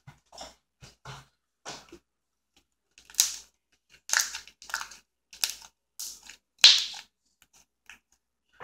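Slime being squeezed and stretched between the hands, giving an irregular run of sharp sticky pops and clicks, louder from about three seconds in.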